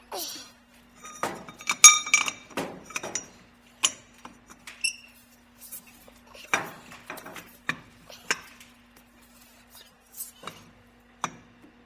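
Pipe wrench and metal pipe fittings clanking and clinking in a string of separate knocks, while a tight fitting on a steam trap is worked loose. A struck piece rings briefly about two seconds in, over a faint steady hum.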